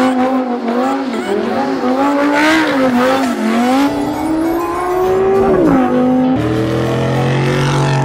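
Car engine revving up and down while the tyres squeal, as in a burnout or donuts. About six seconds in, the pitch drops sharply and a steadier engine note follows.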